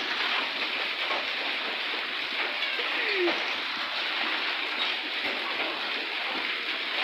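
Heavy rain mixed with hail, a steady hiss and patter on a paved street, with faint scattered ticks of hailstones striking.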